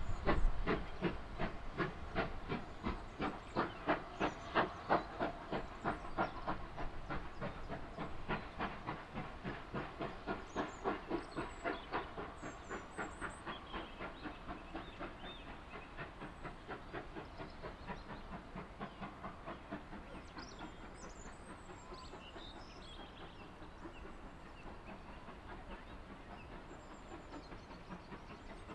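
GWR 'Saint' class 4-6-0 No. 2999, a two-cylinder steam locomotive, working a train away with a steady rhythm of exhaust beats that fade as it draws into the distance.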